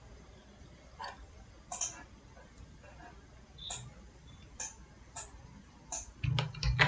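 Computer mouse clicking: single short, sharp clicks every second or so, then a quick run of louder clicks with a low thump near the end.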